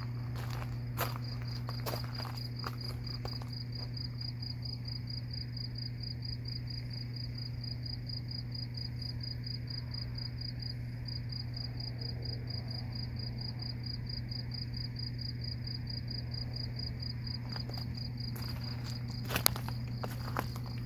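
A night insect, cricket-like, trilling steadily in rapid high-pitched pulses, breaking off briefly about halfway through, over a steady low hum. A few sharp clicks come near the start and again near the end.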